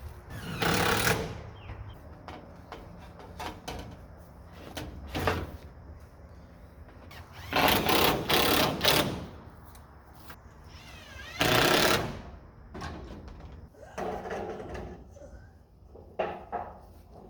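Handheld power driver running in several short bursts, the longest about two seconds, driving screws.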